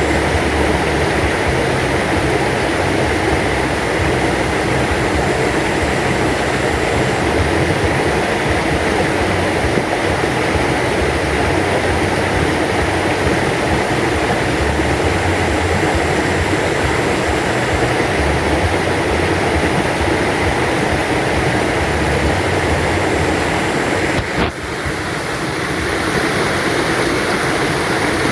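A flowing river stream: a steady rush of running water that dips briefly about three-quarters of the way through.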